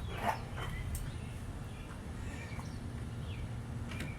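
Faint bird chirps over a steady low outdoor rumble, with a sharp click about a second in.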